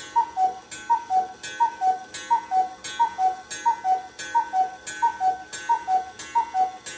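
Swiss cuckoo clock's cuckoo call, a high note then a lower one, repeating non-stop at about three calls every two seconds. The cuckoo mechanism is stuck in an endless loop, which the owner blames on taking out its music box.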